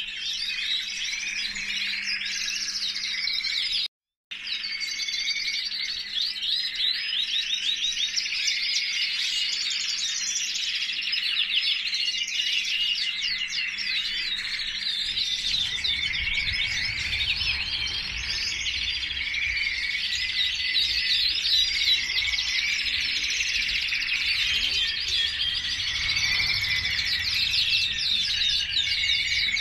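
Many canaries singing at once: a dense chorus of rapid, overlapping trills and chirps, broken by a brief dropout about four seconds in. A low rumble joins the chorus from about halfway.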